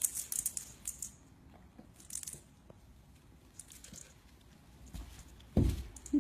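Small hard objects clinking and rattling in short bursts, then a dull thump about five and a half seconds in.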